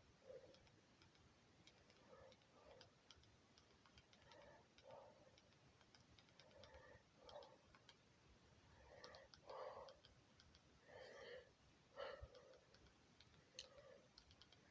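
Near silence: room tone, with a few faint, short sounds scattered through it.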